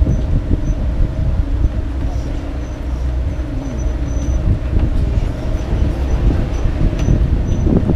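Sightseeing tourist tram running, heard from on board: a steady low rumble with an engine hum.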